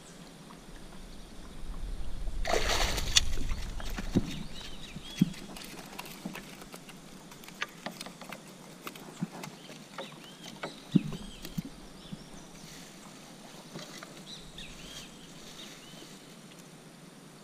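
A burst of water splashing about two and a half seconds in, followed by scattered knocks and taps as a landed piapara is handled in the landing net on a plastic kayak. Small birds chirp repeatedly in the background.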